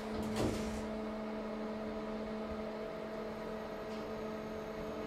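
KONE MonoSpace machine-room-less traction elevator car travelling up: a brief noise of the doors finishing closing at the start, then a steady hum with a few steady tones from the hoist drive as the car rises.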